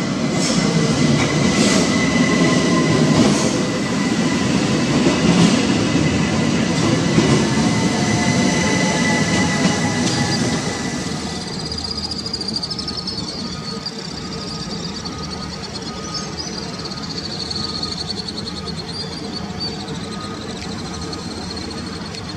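Electric trains passing. First a Zentralbahn metre-gauge electric multiple unit rolls by close, with a loud wheel-on-rail rumble and a steady high tone. About eleven seconds in the sound drops to a quieter, more distant SBB Re 460 electric locomotive leading double-deck coaches over the switches, its wheels squealing with a high wavering tone.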